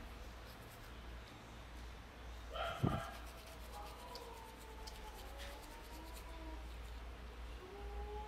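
Dogs whining with thin, long, wavering calls, and one short sharp bark about three seconds in.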